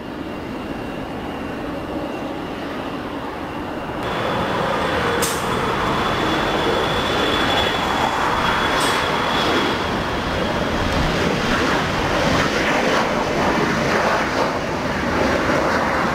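Four CFM56-5C jet engines of an Airbus A340-300 at takeoff power during the takeoff roll: a steady roar with a thin high whine over it, getting louder about four seconds in.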